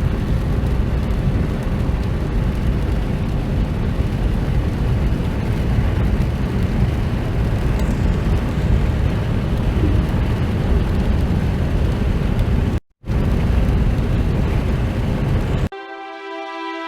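Steady road and wind noise inside a car driving at speed, a low rumble that cuts out briefly about thirteen seconds in; soft music with held tones begins near the end.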